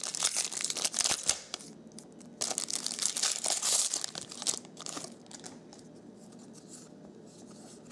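Foil wrapper of a 2011 Bowman Platinum trading-card pack being torn open and crinkled in two spells, the second longer. After about five seconds it turns quiet, with only faint rustles as the cards are handled.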